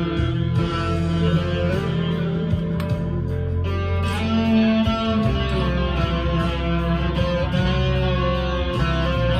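Harley Benton SC Custom II single-cut electric guitar played with a pick through an amp's crunch channel: lightly overdriven notes and chords ringing out, changing about every second.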